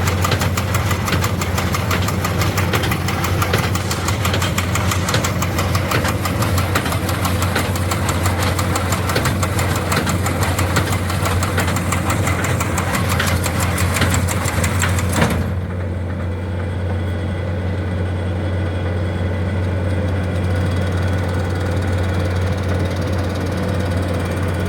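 Tractor driving a New Holland Hayliner 67 square baler, the baler clattering rapidly over the steady engine hum. About fifteen seconds in there is a sharp knock and the baler's clatter stops while the tractor engine keeps running: the baler's shear bolt has sheared.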